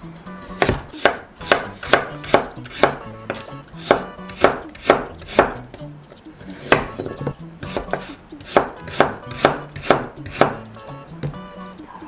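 Santoku knife slicing a carrot on a wooden cutting board: a steady series of knocks as each cut goes through and meets the board, about two a second, with a short break a little past the middle.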